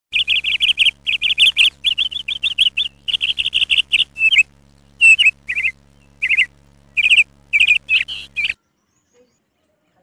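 Alexandrine parakeet calling over and over, with rapid fluttering calls in quick runs separated by short gaps. The calls stop abruptly about eight and a half seconds in.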